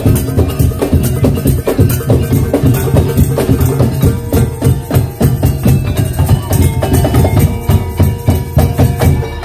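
Madurese daul (tong-tong) ensemble playing a fast, dense drumming rhythm with heavy bass drums and many quick struck-percussion hits.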